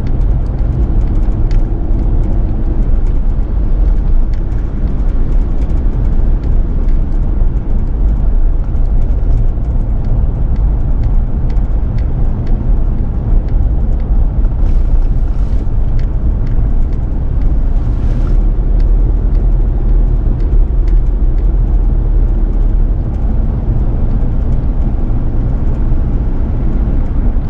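Steady low rumble of a car's engine and tyres on the road, heard from inside the moving car through a dashcam's microphone.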